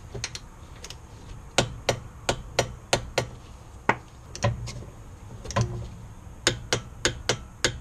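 Torque wrench clicking as the rear brake caliper bracket bolts are tightened: a string of sharp clicks, about three a second, in short runs with brief pauses.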